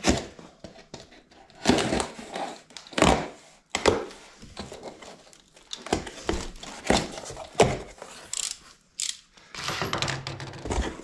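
Utility knife slitting packing tape on a cardboard box and the cardboard flaps being pulled open: a string of short, sharp rips and scrapes, with a few thuds of the box being handled.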